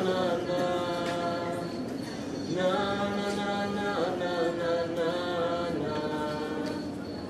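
Unaccompanied singing in long held notes, with a short break a little after two seconds in and another at about four seconds.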